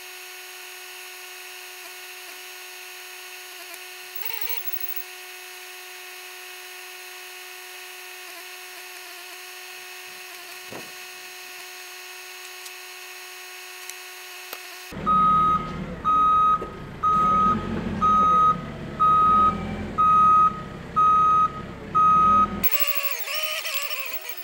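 Telehandler's reversing alarm beeping on one pitch, about one beep a second for some eight beeps, over its engine running; this starts a little past halfway through. Before it there is only a steady faint hum.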